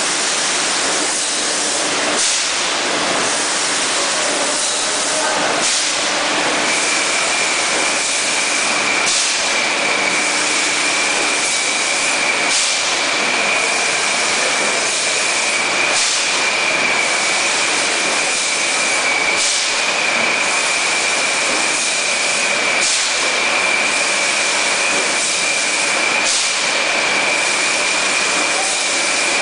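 A 6-litre PET bottle filling line running: a dense, steady machinery hiss with clatter, a brief sharper hiss about every three and a half seconds, and a steady high whine that sets in about six seconds in.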